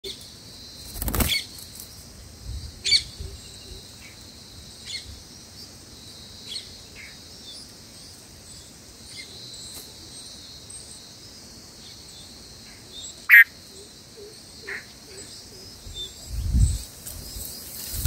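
Bulbuls chirping, short scattered calls over a steady high-pitched hiss. A sharp click with a chirp about thirteen seconds in is the loudest sound, with a thump near the start and a low rumble near the end.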